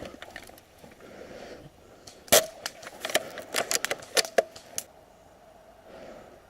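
Airsoft guns firing: a loud sharp shot about two seconds in, then a quick, irregular run of about a dozen more sharp shots over the next two and a half seconds.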